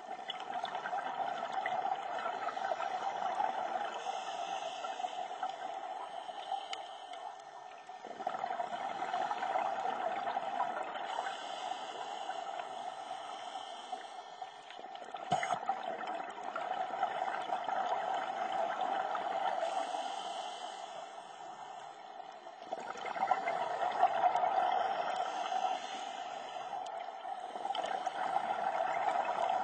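Scuba diver breathing through a regulator underwater: a hiss on each breath in and a gurgling rush of exhaled bubbles on each breath out, several slow breaths in a row. There is one sharp click about halfway through.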